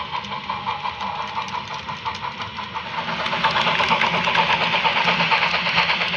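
Steam locomotive exhaust chuffing from an HO scale model freight train, a steady rhythmic beat that grows louder about three seconds in as the locomotive comes by.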